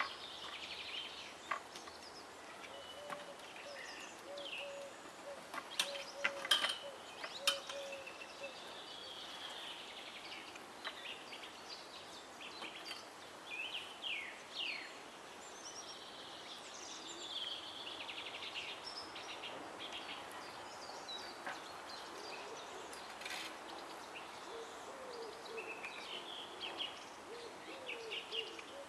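Birds calling: a low hooting note repeated in quick series, early and again near the end, over chirps and song of small birds. A few sharp knocks about six to seven and a half seconds in.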